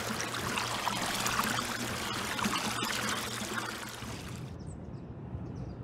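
Dense patter of falling rain that cuts off suddenly about four and a half seconds in, leaving only a faint low background.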